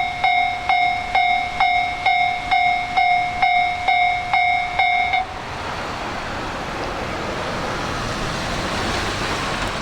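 Japanese level-crossing alarm bell ringing its "kan-kan" strikes, about two a second, until it cuts off abruptly about five seconds in. A rising rush of noise follows from a diesel train running past on the JR Soya Line.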